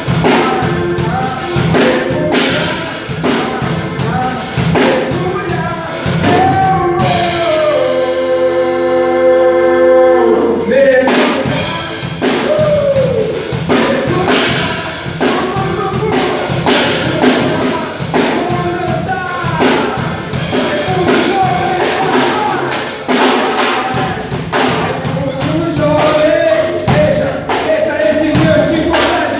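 A band playing a song with sung vocals over a steady drum-kit beat. About a quarter of the way in, the drums drop out for a few seconds under long held vocal notes, then the beat comes back in.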